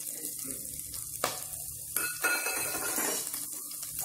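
Chopped green chillies sizzling in hot oil in a steel pan as they are stirred, a steady frying hiss with a few sharp clinks against the pan.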